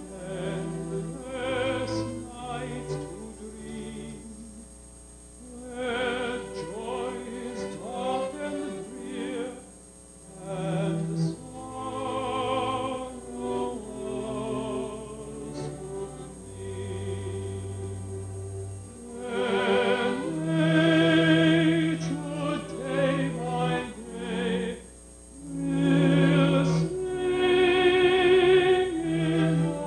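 A tenor and a soprano singing a light-opera duet in a classical vibrato style, with orchestral accompaniment; the voices swell loudest in two long held phrases in the second half.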